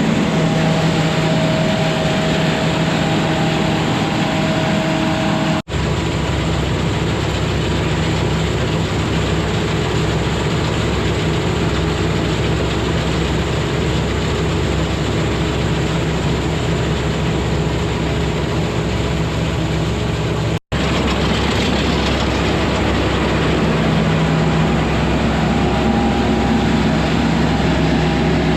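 Combine harvester running steadily while harvesting wheat: a constant engine hum under the rush of the machinery. The sound drops out for an instant twice, about 6 and 21 seconds in.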